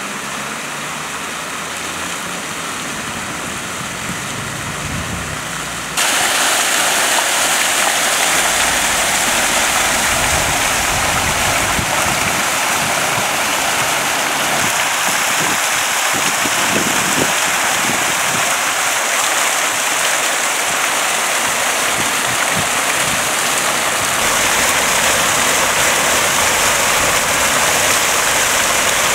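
Fountain jets splashing down into the pool of the basin: a steady hiss of falling water. It grows louder and brighter about six seconds in.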